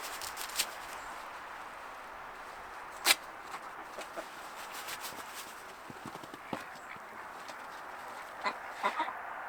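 Backyard poultry (chickens and ducks) faintly calling over a steady hiss, with scattered small clicks, one sharp knock about three seconds in and a few more knocks near the end.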